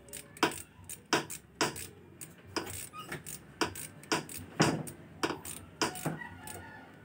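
Hand ratchet wrench worked back and forth on a bolt, giving sharp metallic clicks about every half second that stop near the end.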